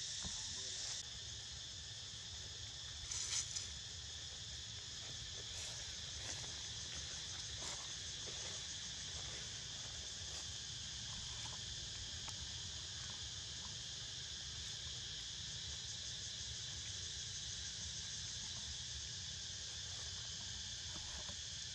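Steady chorus of insects, an unbroken high-pitched trilling drone. A brief sharp sound stands out about three seconds in.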